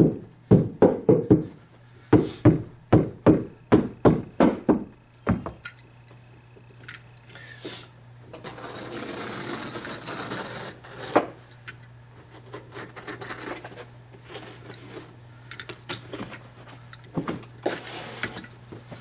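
Carpet stair tool being struck with a hammer to drive the carpet down into the corner of the step: a quick series of about fifteen sharp knocks over the first five seconds or so. A stretch of rustling and a few scattered knocks follow.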